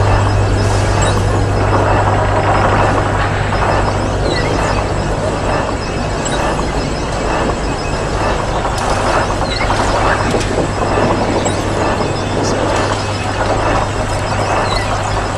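Ambient electronic sound-score drone: a dense rushing noise texture over a steady low hum, with a small high chirp recurring about every five seconds.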